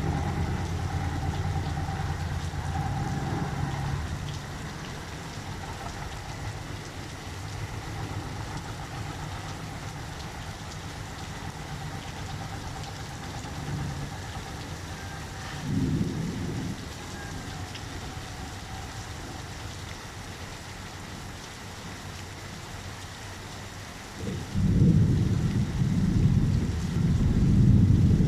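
Steady rain with thunder: a low rumble that dies down a few seconds in, a short rumble about sixteen seconds in, and a loud, long rolling peal of thunder starting near the end.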